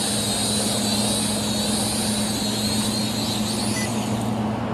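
Small SG106 toy quadcopter drone's propellers whining as it descends to land, the pitch wavering as the motors adjust, then dying away a little under four seconds in as it touches down.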